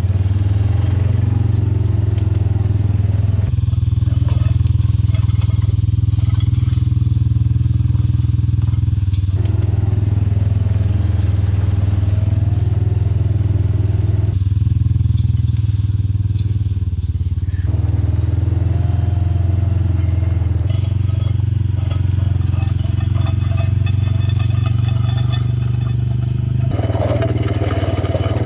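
Engine of a small log-skidding machine running steadily in forward drive, dragging a chained log. Stretches of crackling noise come and go on top of the engine hum.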